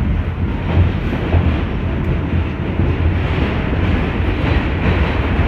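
R46 subway car running at speed through a tunnel, heard from inside the car: a loud, steady low rumble of steel wheels on the rails.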